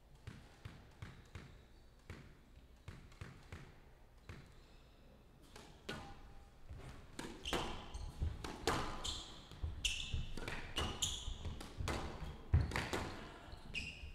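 Squash rally on a glass court: sharp smacks of racquets striking the ball and the ball hitting the walls and floor, with shoe squeaks on the court. The hits are sparse and faint at first, then come thicker and louder about halfway through as the rally heats up.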